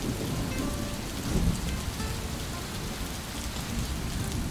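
Rain sound effect: a steady downpour of heavy rain with low rolls of thunder rumbling underneath.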